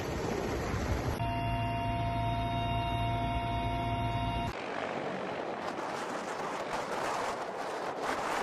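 Firefighting helicopter noise in separate clips joined by cuts. From about a second in, a steady engine and rotor drone with a constant turbine whine, heard from inside the helicopter. From about halfway, a rushing noise with little low hum.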